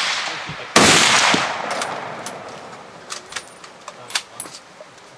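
A single rifle shot about a second in, with a long echoing decay under the roofed firing line. The tail of an earlier shot is still dying away at the start. A few light clicks follow near the end.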